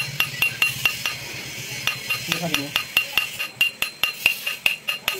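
Quick, light metal-on-metal taps, about four a second with a short pause about a second in. A steel rod is gently driving a part into its seat on an electric water pump motor's shaft.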